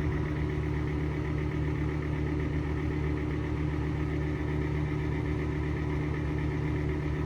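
Exhaust fan running with a steady, noisy hum and a constant higher-pitched drone from its bad bearings; it is not squeaking.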